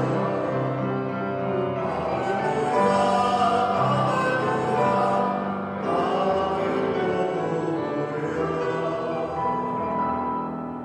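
Church music: singing with instrumental accompaniment, in long held notes, fading away near the end.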